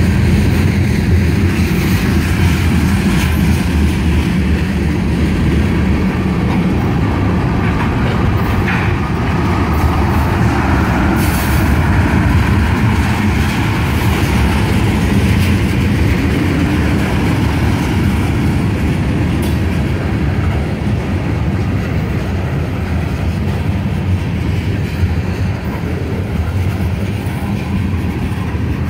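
Freight cars of a long mixed freight train (covered hoppers and tank cars) rolling past close by: a loud, steady rumble of steel wheels on rail, broken by a few sharp clanks.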